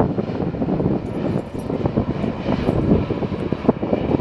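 Jet engines of a Boeing 747-400 freighter rumbling as it rolls along the runway, a loud, ragged noise heaviest in the low range.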